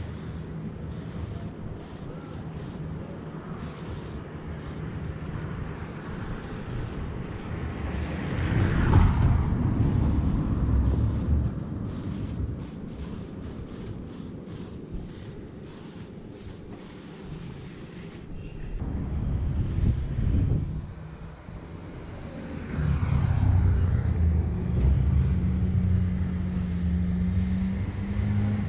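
Aerosol spray paint can hissing in short on-off bursts as it paints a wall, over the low rumble of passing motor traffic. One vehicle rumble swells and fades about eight to eleven seconds in, and a low engine tone runs steadily from about twenty-three seconds in.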